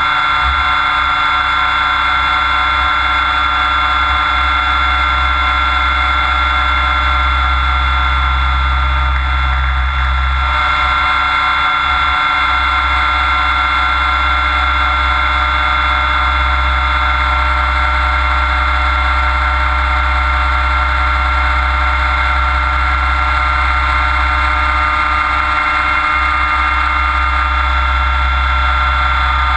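Onboard sound of a Mikado Logo 600 SX electric model helicopter in flight, picked up by a camera bolted to its frame. A steady, high-pitched motor and gear whine runs over the low drone of the main rotor.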